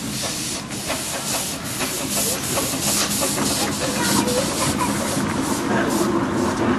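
Small 15-inch gauge steam tank locomotive puffing as it approaches, with a regular chuff about twice a second over a steady hiss of steam, growing louder.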